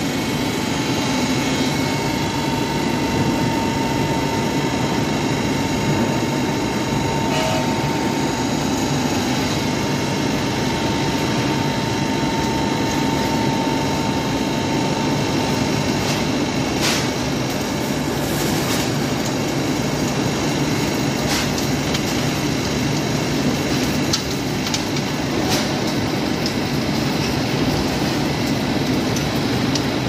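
Steady, loud industrial din of a steel melt shop while an induction furnace taps molten steel into a ladle: a continuous rumble and hum with several steady tones, and a few sharp cracks in the second half.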